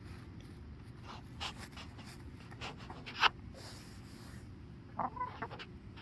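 Broody Welsummer hen giving short, sharp clucks at intervals, the loudest a little past three seconds and a quick run of several near the end, with faint scratching and pecking at a towel in between.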